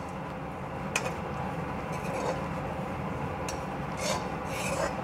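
Perforated steel spatula scraping and stirring raisins and dry shredded coconut around a steel kadhai on low heat. A rasping scrape with each stroke, about once a second.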